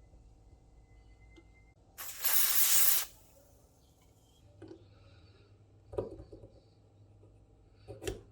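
One hissing spray burst lasting about a second, of the kind made by an aerosol can or a compressed-air nozzle, followed by a few light knocks of parts being handled.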